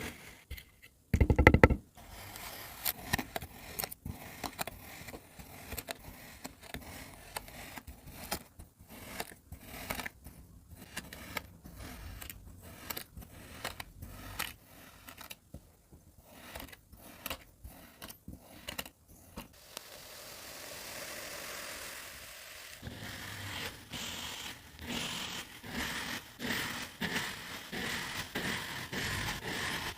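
Kinetic sand being cut and crushed: a run of short crunchy scrapes and crackles, with a loud thump about a second and a half in and a brief steady hiss around twenty seconds in.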